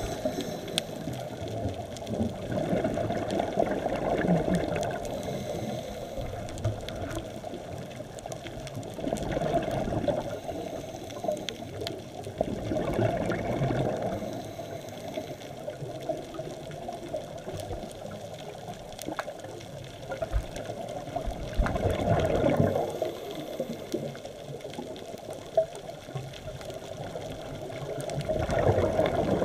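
Scuba diver's exhaled air bubbles from the regulator rumbling past an underwater camera in swells every several seconds, about five times, over a steady underwater hiss with faint clicks.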